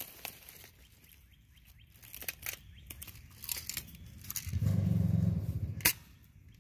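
Small crackles and rustles of dry leaf litter and the handheld camera being shifted. Near the end a low hum lasts about a second and a half, followed by one sharp click.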